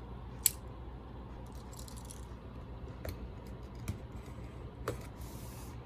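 Packaging being handled and opened by hand: a sharp snap about half a second in, then scattered light clicks and rustling.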